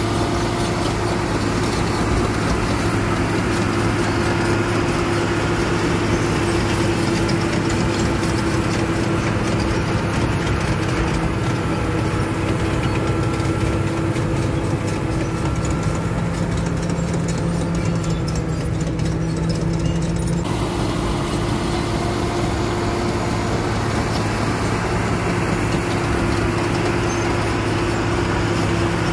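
Caterpillar crawler bulldozer's diesel engine running steadily as the machine moves and turns, with a deep, continuous engine note that shifts slightly about twenty seconds in.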